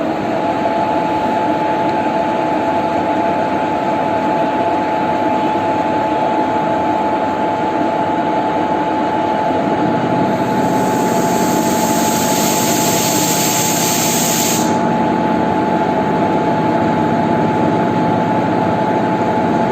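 WAP-4 electric locomotive running after start-up: a steady machine whine with two held tones over a broad rush. About ten seconds in, a high hiss joins for about five seconds and then cuts off.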